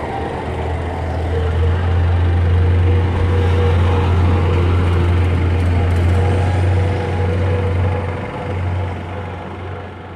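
A motor vehicle engine running steadily close by, a loud low hum that fades over the last couple of seconds.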